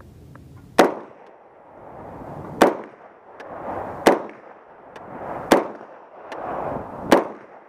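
Five shots from a Daytona Tactical AR-15 carbine firing 150-grain .300 Blackout, at a slow, even pace of about one every one and a half seconds.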